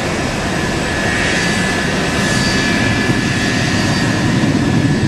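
Jet airliner engines running as the plane passes: a broad rush with a steady high-pitched whine over it.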